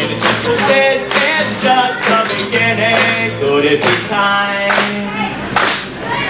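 Acoustic guitar strummed in a steady rhythm while a man sings over it, a live solo song with voice and guitar.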